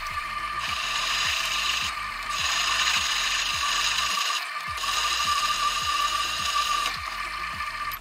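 Manual milling machine's geared spindle running while drilling a hole in a plate: a steady gear whine over a fast low ticking, dipping briefly twice and cutting off near the end.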